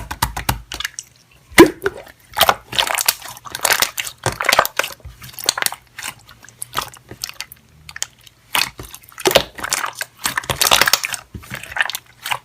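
Slime being squished and worked by hand, giving irregular crackling clicks and squelches.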